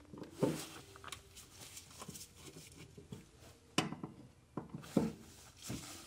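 Phillips screwdriver working on the screws of a Suzuki Samurai's throttle pedal bracket: faint scraping and light clicks of metal on metal, with a few sharper clicks, the clearest about four and five seconds in.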